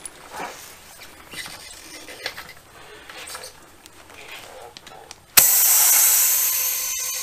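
Faint clicks and scrapes of a valve-core tool at a small mower tire's valve stem. About five seconds in, a sudden loud, steady hiss of compressed air starts from an air-hose chuck pressed on the valve stem, inflating the tire.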